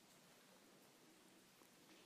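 Near silence: faint room tone with a little hiss.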